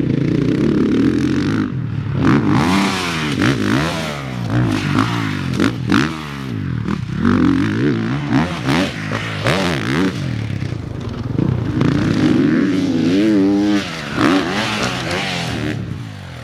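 Gas Gas four-stroke factory motocross bikes being ridden hard. The engines rev up and drop off again and again as the throttle is opened and closed, so the pitch keeps climbing and falling.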